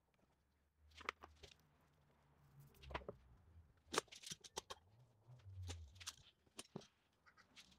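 Scattered light knocks and clicks of wood and metal as glued wooden seat laminations are set in place and F-clamps are handled and fitted, with a soft low rumble of wood sliding on the bench twice.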